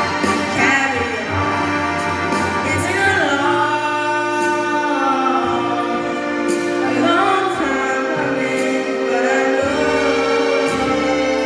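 Music with a sung vocal line: long held notes that slide up and down over a steady accompaniment and a sustained bass note.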